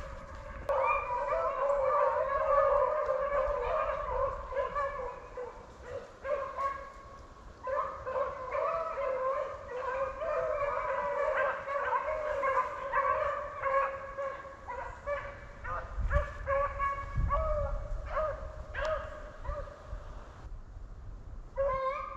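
Rabbit-hunting beagles baying, long pitched cries from several dogs overlapping almost without a break, dropping off briefly near the end.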